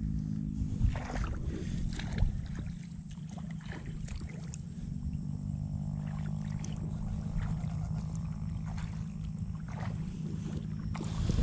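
Footsteps wading through shallow paddy water, with irregular splashes and sloshes under a steady low rumble.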